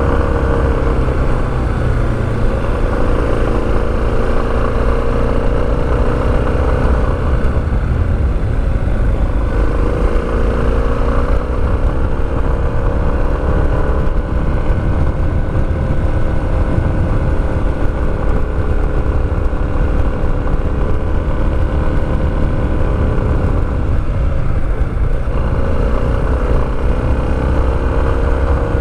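Motorcycle engine running under way, its pitch rising and falling several times as the revs change, over a steady low rumble.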